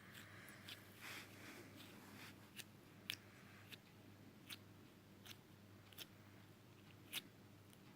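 Pink slime being played with by hand: faint sticky clicks and pops at irregular intervals, with a soft squelching rustle in the first couple of seconds.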